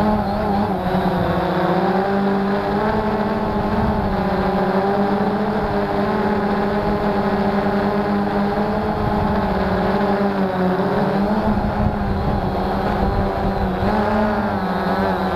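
Cheerson CX-20 quadcopter's brushless motors and propellers buzzing steadily, heard from its onboard camera; the pitch wavers slightly as the motor speeds change, more so near the end.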